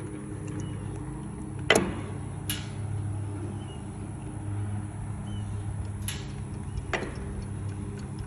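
Aermotor water-pumping windmill making a clunking noise: sharp clunks in two pairs, a little under a second apart, about two and six seconds in, the first the loudest, over a steady low hum.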